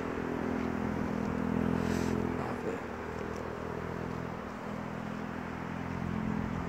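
Steady low engine or motor drone at an even pitch, swelling about two seconds in and easing soon after, over outdoor background noise, with one short tick near the swell.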